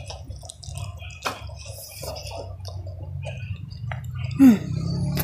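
Close-up eating sounds of a mouthful of rice and salted fish chewed with the mouth open: wet smacks and small clicks. A short falling vocal sound about four seconds in is the loudest moment, over a steady low hum.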